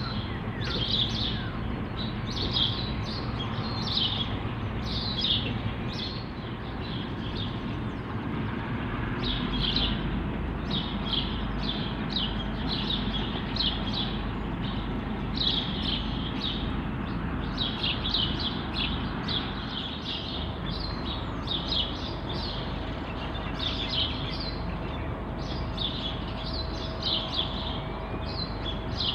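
Birds chirping, with many short rapid calls throughout, over the steady low rumble of a departing diesel-hauled log train moving away into the distance.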